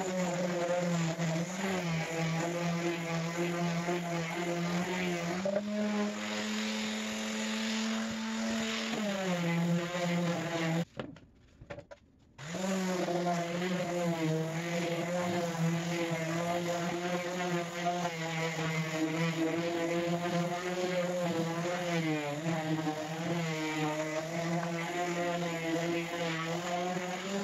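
Electric random orbital sander running on plywood, a steady motor hum whose pitch shifts up and down now and then. It cuts out for about a second and a half near the middle, then runs on.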